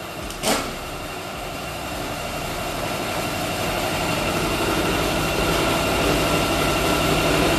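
A single sharp metallic knock about half a second in, then a steady mechanical drone with a faint high whine that slowly grows louder.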